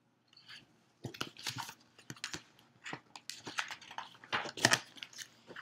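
Pages of a large picture book rustling and crackling as the page is turned and the book handled: a quick run of crinkly paper clicks.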